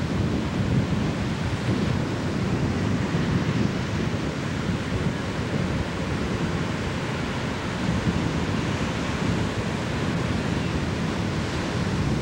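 Ocean surf breaking on a beach, a steady rush of waves, with wind buffeting the microphone.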